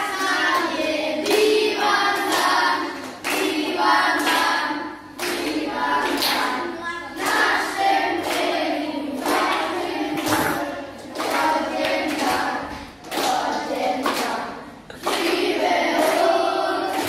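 A group of children singing a chant together, with rhythmic hand clapping about once a second.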